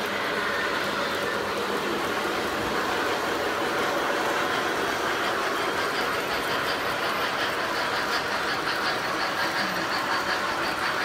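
Model passenger train with twin diesel locomotives rolling along the layout track: a steady running noise of wheels and motors, with even clicking of wheels over rail joints that gets clearer in the second half.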